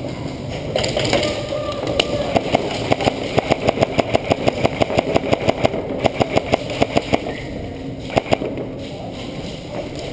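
Airsoft gun firing a rapid string of single shots, about five a second, for some five seconds, then two more shots about a second later, over a steady rumble of movement and wind.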